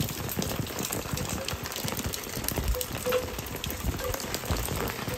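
Torrential rain falling steadily: a constant hiss with a dense patter of individual drops.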